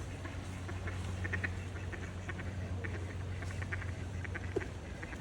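Birds giving clusters of short, rapid calls over a steady low hum.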